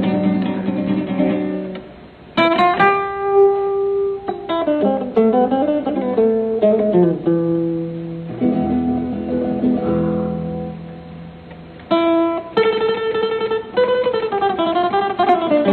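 Metal-bodied resonator guitar played solo: plucked melodic runs and ringing chords, with short pauses between phrases about two seconds in and again near the end.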